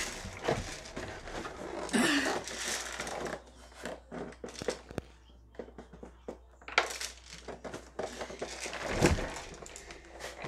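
Cardboard box and packaging being handled and opened: irregular crinkling and rustling with scattered knocks, quieter for a couple of seconds midway.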